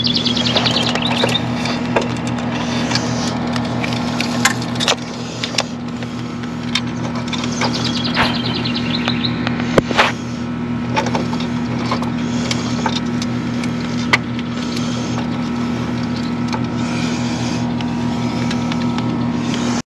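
Scattered clicks and knocks from a metal LED floodlight fixture being handled and fastened, over a steady low hum. The loudest knocks come about ten seconds in and again a few seconds later.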